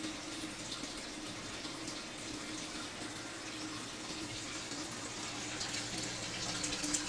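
Water running in a thin steady stream from a water dispenser's spout into a stainless steel dog bowl, with a few light clicks near the end.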